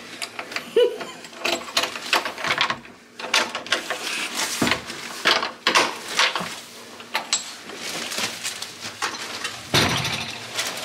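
A key clicking, scraping and rattling in a wooden door's lock as it is worked, with irregular small knocks, then a louder clunk near the end as the door is opened.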